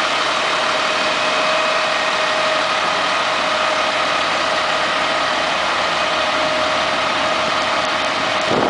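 A fire engine's diesel engine idling steadily, with a steady whine of high tones over the running.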